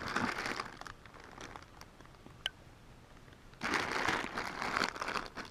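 Zip-top plastic bags of loose action figures crinkling as a hand rummages through them. The rustling comes in two spells, at the start and again from about three and a half seconds in, with a quieter stretch between.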